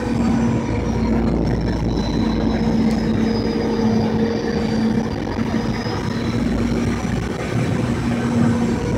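Jet airliner's engines and rushing airflow heard from inside the cabin during the final descent to landing. The noise is steady, with a low hum and a faint high whine that drifts slightly in pitch.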